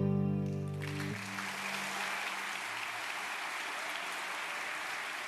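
The last chord of a nylon-string classical guitar dies away, and about a second in an audience breaks into steady applause.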